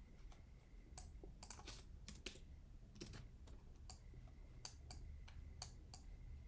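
Faint, irregular clicks of a computer keyboard and mouse, a dozen or so spread unevenly over a few seconds.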